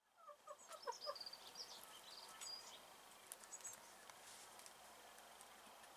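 Domestic hens clucking faintly: a quick run of about five short clucks in the first second. Small wild birds chirp thinly in the background for the first few seconds.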